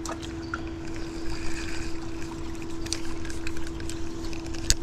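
Electric trolling motor on a jon boat running with a steady, even hum. Light scattered clicks are heard over it, and a sharp click comes near the end.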